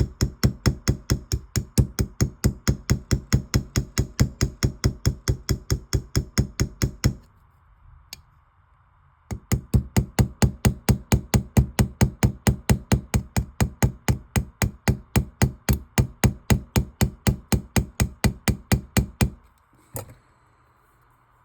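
Small hammer peening the pin of a straight razor's scales, about six quick, even strikes a second, to shift the blade's centering. Two long runs of tapping with a short pause between them, plus a lone tap in the pause and another near the end.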